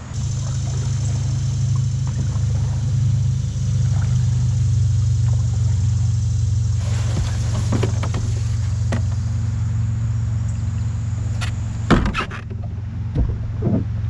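A steady low hum from a small motor, with a few sharp knocks and clatters about eight and twelve seconds in.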